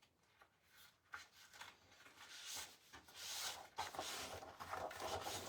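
Sheets of scrapbook paper being handled and slid across a tabletop: a soft rubbing rustle with a few light clicks, starting about a second in and growing a little louder.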